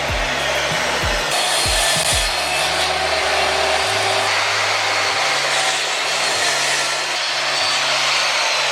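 Electric power saw running and cutting through wood, a steady hissing cut with a thin motor whine, over background music.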